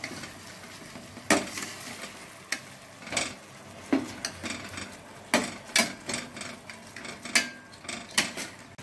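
Steel slotted spoon stirring whole potatoes in gravy in a stainless steel pot, knocking and scraping against the pot about ten times at an uneven pace, over the low sizzle of the simmering gravy.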